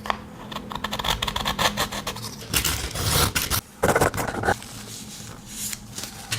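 Steel knife blade drawn again and again through a cheap carbide-and-ceramic pull-through sharpener, giving repeated scraping strokes. The strokes are loudest in the middle and softer near the end.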